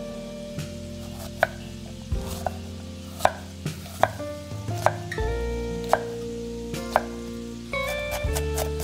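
A knife chopping on a cutting board in single, unhurried strokes about once a second, over background music.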